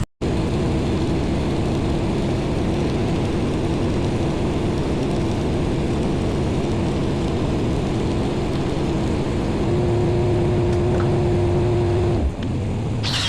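An engine running steadily under a constant hiss, with a short crackling high-pitched burst near the end.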